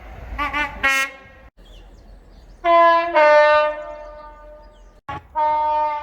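Train horns sounding in a string of separate blasts, cut abruptly from one to the next. First two short wavering toots and a short sharp blast, then a loud longer two-tone blast that steps down from a higher note to a lower one and fades, then another steady blast near the end.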